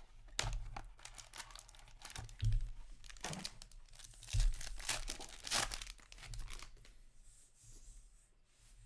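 Plastic wrapping torn and crinkled as a sealed box of hockey cards is opened: a string of rustling tears with a couple of heavier bumps, dying down about seven seconds in.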